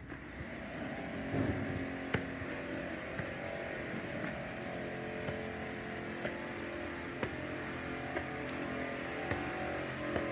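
An engine running steadily with a hum of several held tones, growing louder over the first second or so. Sharp ticks, like footsteps on gritty concrete, fall about once a second.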